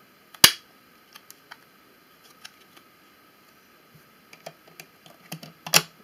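Sharp plastic clicks and light taps as an iPod nano is pressed into the clear plastic holder of its original box. One loud snap comes about half a second in, then scattered faint taps, and a quicker run of clicks ends in another loud click near the end.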